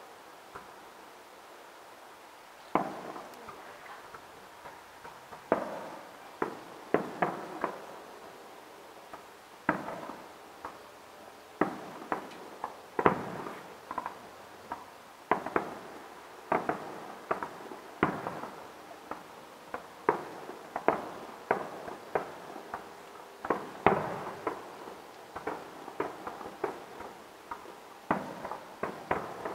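Distant aerial firework shells bursting: a long string of sharp booms at irregular intervals, some in quick clusters, each trailing off in a short echo.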